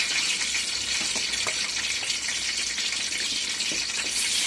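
Raw chicken pieces sizzling in hot oil in a steel pan as they are spooned in: a steady hiss, with a few light clicks of the metal spoon against the pan.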